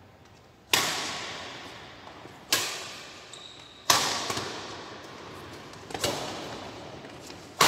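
Badminton rackets hitting a shuttlecock back and forth in a rally: five sharp hits spaced about one and a half to two seconds apart, each echoing in a large hall.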